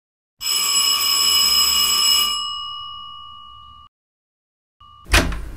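Doorbell ringing for about two seconds, then dying away. Near the end it gives a short second ring, cut off by a sharp knock.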